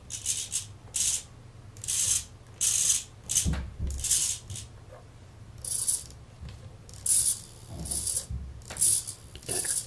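Small RC servos on an FPV camera's pan-tilt mount whirring in short bursts, about a dozen brief moves of a fraction of a second each, over a steady low hum.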